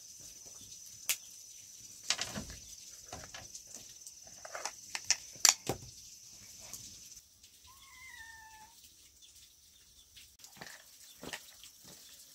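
Scattered knocks and clicks, the loudest about two and five seconds in, over a steady high whine that stops about seven seconds in. About eight seconds in comes one short animal call that rises and then falls in pitch.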